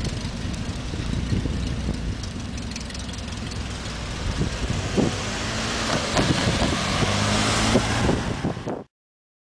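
Small gasoline engines of several rail speeders running as the motorcars travel along the track, a steady low drone with a few sharp metallic clacks. The sound cuts off abruptly near the end.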